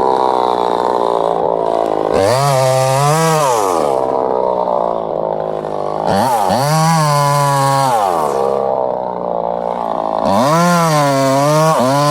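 Two-stroke chainsaw cutting wood, its engine climbing to high revs, holding for a second or two and dropping back, three times about every four seconds.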